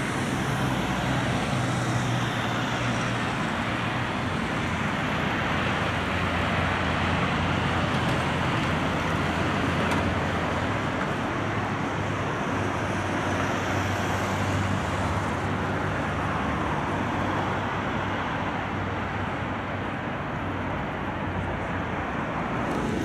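Steady city street traffic noise: car and truck engines running and tyres on the road, with a low engine hum throughout.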